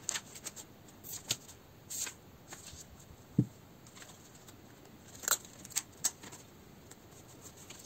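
Paper handling: a glossy journal page being turned over and smoothed down, with scattered light clicks and rustles and one sharp low thump about three and a half seconds in.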